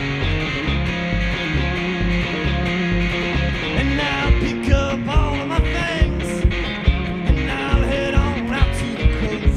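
Live roots-rock band playing: two electric guitars over an upright bass. About four seconds in, a man starts singing and a steady beat of sharp hits, about two a second, comes in.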